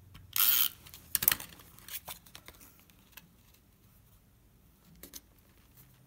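Handheld adhesive tape runner drawn across the back of a cardstock panel: one short rasping stroke about half a second in, followed by a few light clicks and taps of paper being handled and set down.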